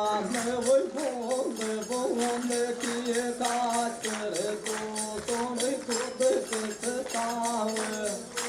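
Man singing a Rajasthani folk song in long, gliding melodic phrases, with a hand-held tambourine keeping a steady jingling beat.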